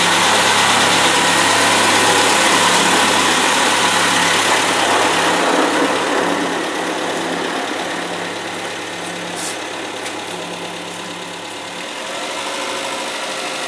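Mitsubishi Chariot car engine running at a steady low speed as the car pulls out of the garage, the sound fading as it moves away.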